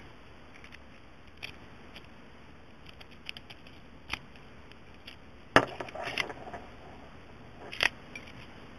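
Scattered light metallic clicks and a few sharper clatters, the loudest about five and a half seconds in, from a brass sliding-shackle padlock and its key being handled.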